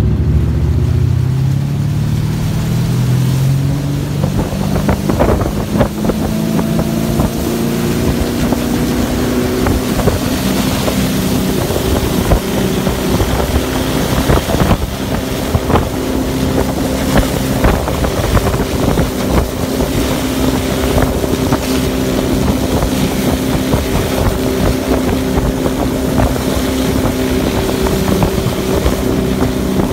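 Tow boat engine pulling a barefoot water skier: it accelerates with its pitch climbing over the first several seconds, then runs steady at speed. Wind on the microphone and the hiss of spray from the skier's bare feet run underneath.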